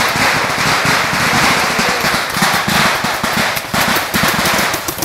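Paintball markers firing in rapid runs, many sharp pops in quick succession, over a loud steady hiss.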